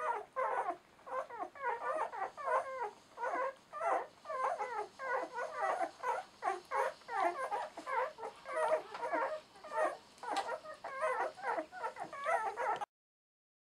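Newborn German Shorthaired Pointer puppies, about ten days old, whimpering and squeaking as they nurse. Many short, high cries come from several pups at once and overlap. The sound cuts off suddenly near the end.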